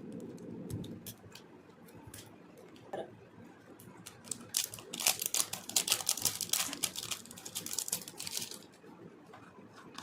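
Packaging of a body butter being handled: a few scattered clicks and taps, then, about halfway through, a few seconds of dense crinkling and clicking.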